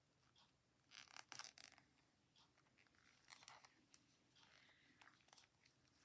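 Faint clicking and rustling of knitting needles and yarn as stitches are knitted two together, in small clusters about a second in and again around three and a half seconds.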